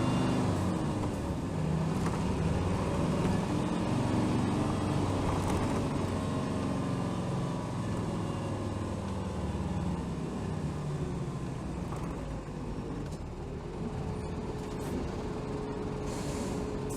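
Hino Rainbow HR city bus's diesel engine heard from inside the cabin, its pitch and loudness falling steadily as the bus slows down, then running low and steady. A short hiss of air comes near the end.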